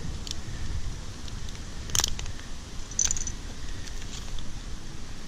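Metal climbing hardware (carabiners and rope devices on a harness) clicking and clinking now and then as the rope is handled, with a sharp clink about two seconds in and a brief metallic ring about a second later, over a steady low rumble.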